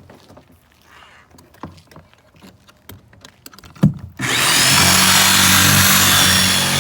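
A few light clicks and knocks, one sharper knock about four seconds in, then a power tool starts and runs steadily and loudly with a high whine.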